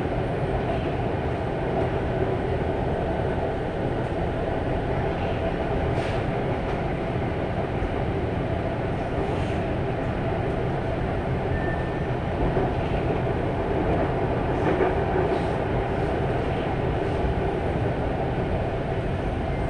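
Mumbai Metro train running between stations, heard from inside the car: a steady rumble with a few faint clicks.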